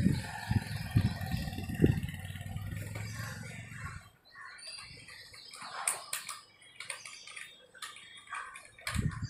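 Handling noise from fitting a high-pressure hose to a pressure washer's outlet coupling: knocks and bumps against the plastic housing over a low rumble for about four seconds, then quieter scattered clicks.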